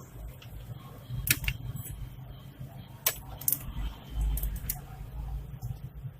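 Scattered sharp clicks and knocks of laptop parts being handled during disassembly, a few close together about a second in and more around three and four and a half seconds in, over a low steady hum.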